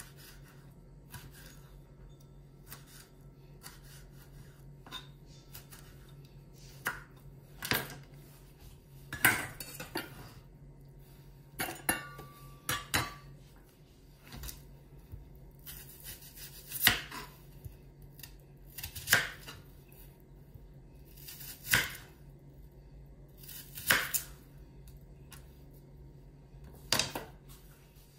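Kitchen knife cutting tomato and onion on a plastic cutting board: separate sharp knocks of the blade striking the board every second or two, over a low steady hum.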